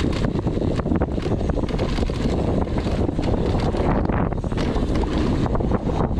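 Wind buffeting the microphone of a downhill mountain bike at speed, with a steady clatter of small knocks and rattles from the bike and tyres on rough trail.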